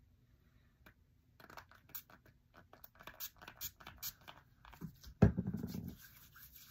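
Things being handled and shuffled about: a run of small clicks, rustles and scrapes, with one heavy thump about five seconds in.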